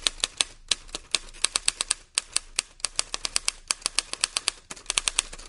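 Typewriter keys clacking in quick, irregular strokes, about six a second with a couple of short pauses: a typing sound effect.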